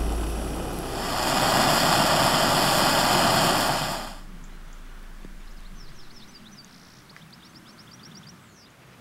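Backpacking gas canister stove burning under a steel mug with a loud, steady hiss that stops abruptly about four seconds in.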